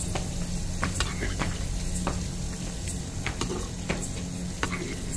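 Steel spatula stirring chicken curry in a clay kadhai, scraping and knocking against the pot at an uneven pace of roughly one or two strokes a second.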